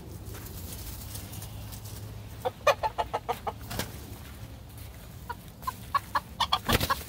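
Roosters clucking in quick runs of short notes, once about two and a half seconds in and again from about five seconds, with a short loud noisy burst near the end.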